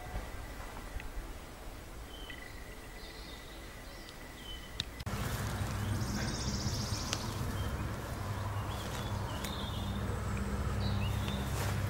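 Small birds chirping in spring woodland, short scattered calls. About five seconds in the background turns into a louder steady low motor hum, like a distant engine running, and the birds keep calling over it.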